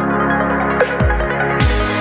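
Electronic background music: held synth chords over deep kick-drum beats, with a bright cymbal-like noise swell coming in near the end.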